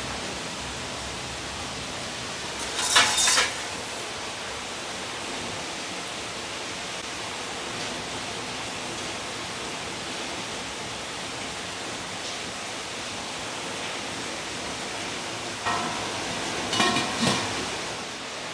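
Steady hiss of a wok of water heating at the boil on a gas burner as raw pork trotters are blanched in it. Brief clatters of handling come about three seconds in and again near the end.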